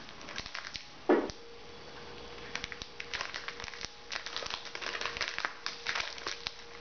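Plastic snack wrapper crinkling and crackling as it is worked open by hand, with many small irregular crackles. One brief louder sound about a second in.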